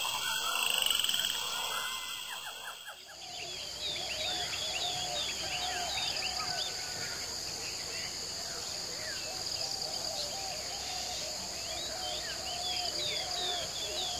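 Chorus of insects and frogs in mountain rainforest: a steady high buzz with many short, repeated chirping calls over it, starting about three seconds in.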